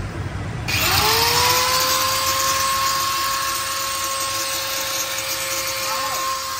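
Handheld angle grinder with a cutting disc switched on about a second in: its whine rises quickly as it spins up, then holds steady at full speed.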